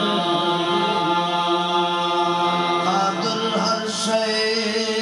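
Qawwali: men's voices singing together over two harmoniums, in long held notes.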